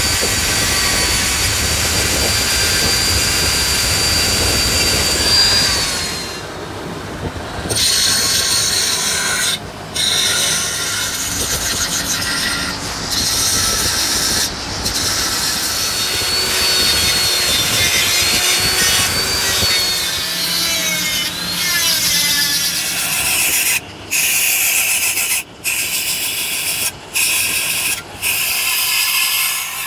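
Electric grinder with an abrasive wheel grinding down built-up weld metal on a cast iron tractor transmission housing: a steady high motor whine over the rasp of the wheel on the metal. It breaks off briefly several times near the end.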